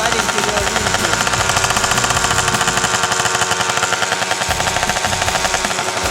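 Yamaha BWS scooter engine running steadily with a fast, even pulsing exhaust note, warming up on the choke.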